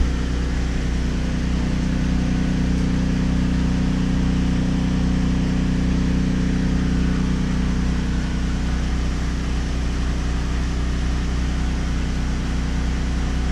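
Portable gasoline generator of about 7000 running watts running steadily under load: a constant, loud engine drone with an even hiss on top.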